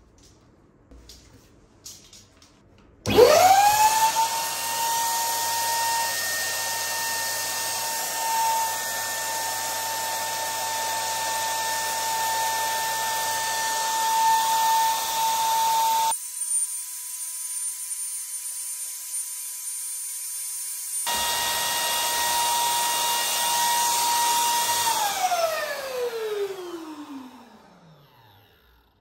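Electric balloon pump switched on about three seconds in, its motor whine rising at once to a steady pitch as it blows air into a rubber squishy toy. Near the end it is switched off and the whine falls in pitch as the motor spins down. A few light handling clicks come before it starts.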